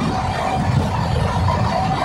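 Steady rumble of a moving passenger train heard from on board, wheels running on the track.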